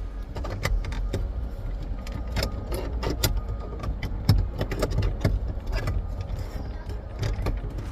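Irregular light clicks and taps of plastic door trim and a clip-in LED light housing being handled and fitted, over a steady low hum.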